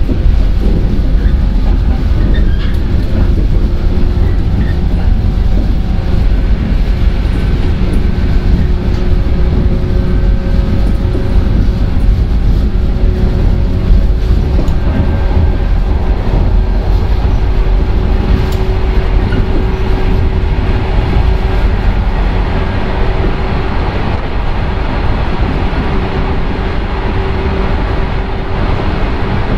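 Running noise inside a 115-series electric train's motor car at speed: a steady rumble with the traction motors' hum holding one tone.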